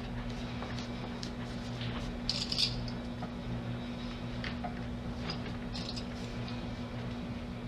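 Vinyl headliner material being handled and pressed into place, with small rustles, crinkles and clicks, the sharpest a short crinkle about two and a half seconds in, over a steady low electrical hum.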